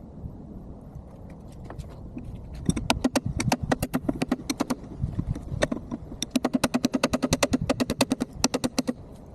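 A fast run of sharp metal-on-metal hammer strikes, sped up: hammer and chisel working on a backhoe boom cylinder. The strikes start about three seconds in and stop shortly before the end.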